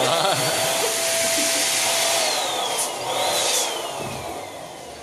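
Electric balloon pump blowing air in a loud, steady rush with a motor whine. About two seconds in, the whine starts to fall in pitch, and the sound fades away as the motor winds down.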